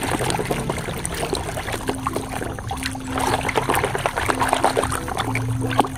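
Water splashing and trickling as a muddy plastic toy is washed by hand in a container of water, with many small irregular splashes and drips.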